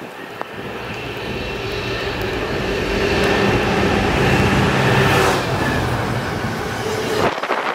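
A diesel locomotive hauling a container freight train passes at speed: its engine note grows steadily louder, peaks as the locomotive goes by about five seconds in, and near the end gives way to the rush of the container wagons.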